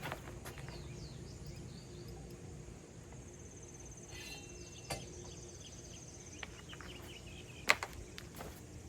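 Quiet outdoor background of bird chirps and a steady high insect buzz, broken by two sharp clinks, about five seconds in and, louder, near the end, as kayak-rack parts are handled during assembly.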